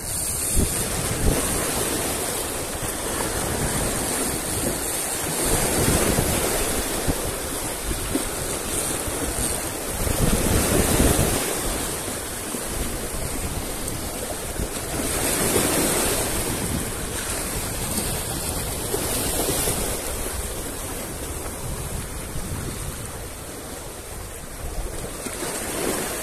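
Sea waves washing in over rocks, the surf swelling and falling back about every five seconds. Wind buffets the microphone.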